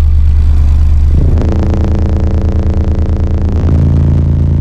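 A 28 Hz test tone played at competition level through an Aura Monstro 15D1 15-inch subwoofer in a car. It is a steady, very loud bass note with a stack of higher overtones that comes in about a second and a half in and shifts near the end. The pressure was measured at about 145.6 dB.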